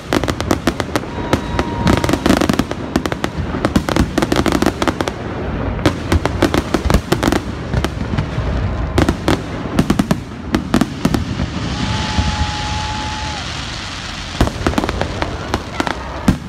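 Large aerial fireworks display: a rapid barrage of shell bursts and sharp reports coming in dense clusters. About twelve seconds in there is a stretch of hissing crackle.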